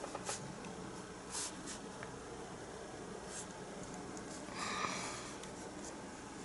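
Faint scratching of a fine paintbrush laying white acrylic paint on canvas. A few soft ticks are heard, and about five seconds in there is a short breathy noise, the loudest moment.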